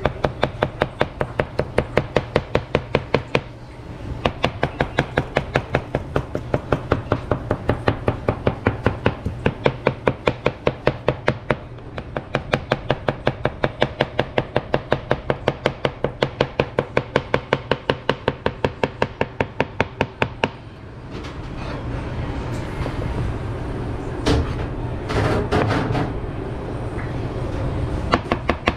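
Knife chopping rapidly and evenly on a cutting board, about four strokes a second, with two brief pauses. About two-thirds of the way through the chopping stops for several seconds of rustling with a few sharp clacks, then picks up again at the end.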